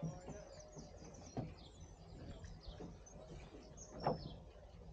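Small birds chirping and singing, with a few sharp knocks, the loudest about four seconds in, over a steady low hum.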